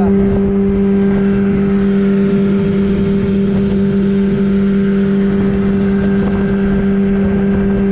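Small outboard motor running at a steady speed and pitch, driving an aluminium boat along the river, with water rushing past the hull.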